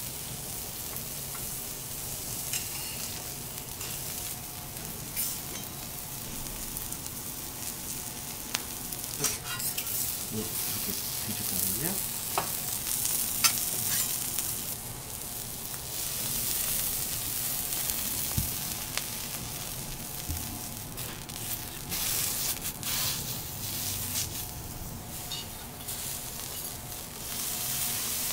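Black tiger shrimp and a sweet potato slice sizzling in oil on a stainless steel teppanyaki griddle. The hiss swells and fades, with a few sharp clicks of a metal spatula on the steel plate.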